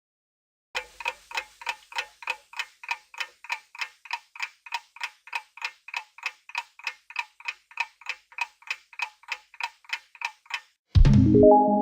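Clock-tick countdown sound effect: sharp, even ticks about three a second for roughly ten seconds, the thinking time of a quiz timer. Near the end it stops and a loud chime of a few rising notes rings out as time runs out.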